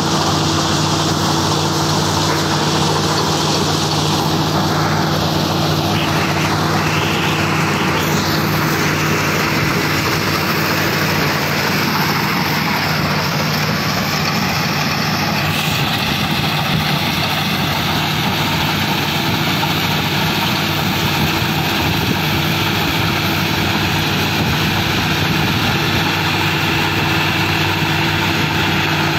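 CLAAS tracked combine harvester running steadily while harvesting a standing crop: a loud, even engine note that holds one pitch, with the machine's working noise over it.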